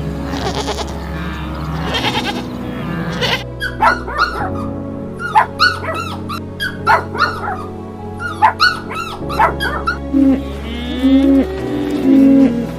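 A run of short, repeated animal calls over steady background music, followed near the end by a few lower, drawn-out calls.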